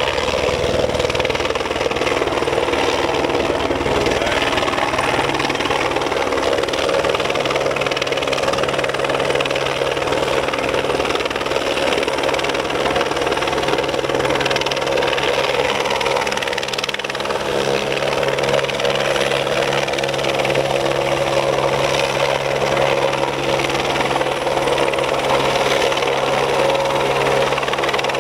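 Eurocopter AS350 A-Star helicopter's single turbine engine and rotor running steadily, with a fast, even blade chop, as it hovers during a hoist pickup.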